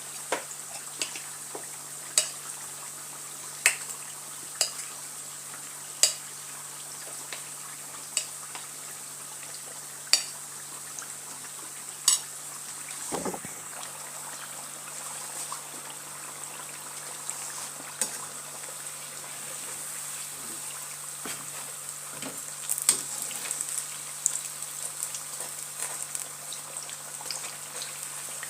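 Batter-coated potato slices deep-frying in hot oil: a steady sizzle, with sharp clicks every second or two.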